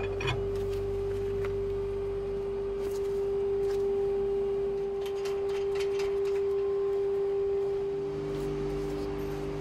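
A steady single-pitched hum, with a few faint clicks; about eight seconds in, a second, lower hum joins it.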